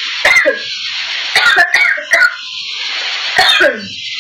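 A person sneezing strongly about four times in quick succession, each sneeze a sharp burst ending in a voiced 'choo' that drops in pitch, over a steady background hiss.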